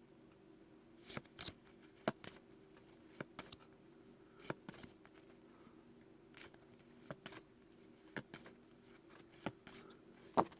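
Trading cards being flipped through by hand: faint, scattered card clicks and slides, roughly one every second, over a faint steady low hum.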